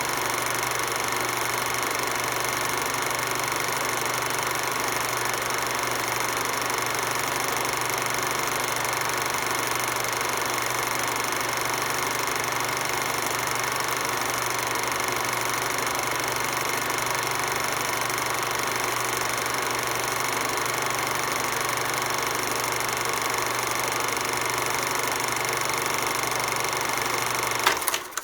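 Projector running with a steady mechanical whir. Near the end a sharp click comes and the sound cuts off abruptly.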